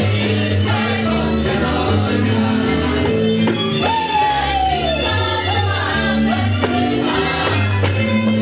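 Hungarian folk dance music from Szatmár, with a steady bass beat and singing. About four seconds in, a single note slides downward.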